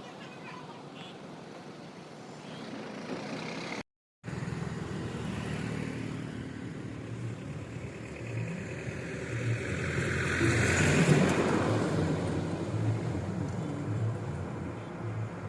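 Highway traffic, with engines and tyre noise running steadily. One vehicle passes close, growing louder and then fading about two-thirds of the way through. The sound cuts out completely for a moment about four seconds in.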